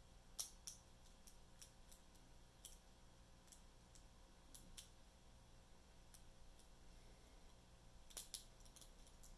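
Small metallic clicks and ticks of a hook pick and tension wrench working the pin stack of a small padlock during single-pin picking, coming at uneven intervals with a quick run of several clicks near the end.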